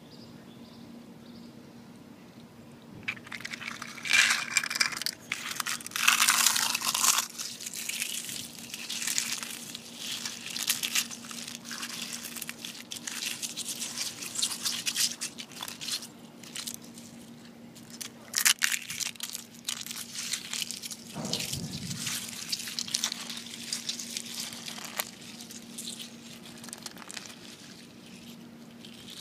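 Eggshells crunching and crackling as bare hands crush and mash raw eggs in spilled yolk. The crackling starts about three seconds in, is loudest for the next few seconds and comes in bursts after that.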